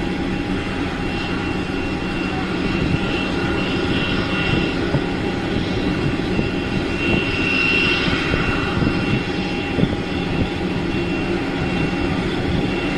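Jet aircraft engines running: a steady rumble with a thin high whine above it.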